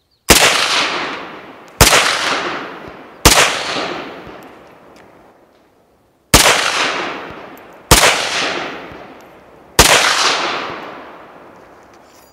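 Six rifle shots from a Norinco Type 56 SKS in 7.62×39mm, fired one at a time at an uneven pace over about ten seconds. Each crack is followed by an echo that dies away over a couple of seconds.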